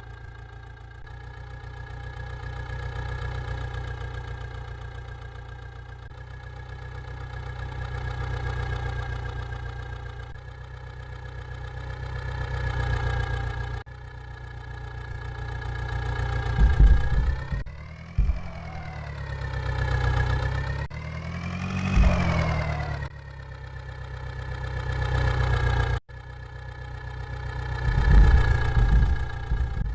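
Engine running at idle with a steady low rumble, its loudness swelling and fading every few seconds. About halfway through, it revs, rising and falling in pitch a few times, with several heavy low thuds, and the sound cuts off abruptly twice.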